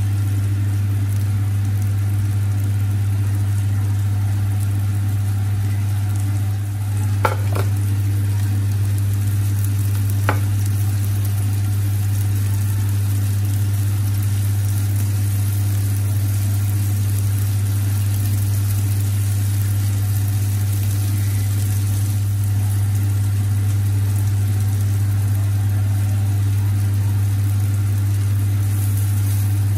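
Burger patties sizzling on an electric griddle over a loud steady low hum, with two sharp clicks about seven and ten seconds in.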